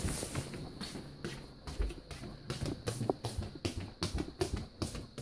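Soft, irregular taps and rustles of footsteps and movement across a wooden floor, several a second, with close handling noise from the phone.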